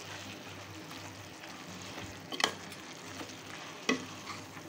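Chicken pieces, onion, tomato and spice powders sizzling in oil in an aluminium pressure cooker as a spatula stirs them, with two sharp knocks of the spatula against the pot. The masala powders are being fried until their raw smell is gone.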